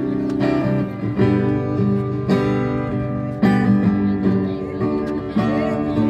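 Acoustic guitar strumming chords, with a fresh strum and chord change every second or so.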